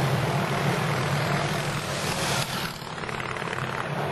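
Engine of a pre-1910 board track racing motorcycle running hard at speed, a steady low drone with rough hiss over it. About two and a half seconds in, the sound drops to a duller, quieter drone.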